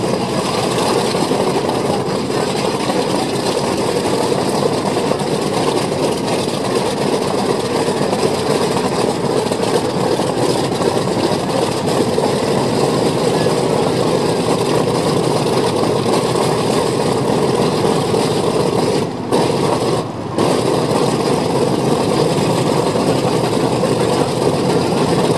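Grumman F7F Tigercat's Pratt & Whitney R-2800 radial engines running steadily at ground idle, a loud, rough, even drone. The sound briefly cuts out twice about three-quarters of the way through.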